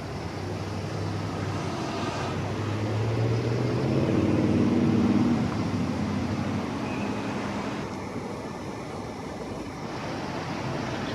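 Road traffic: a passing vehicle's engine rising and growing loudest about four to five seconds in, then fading, over a steady background hum of traffic.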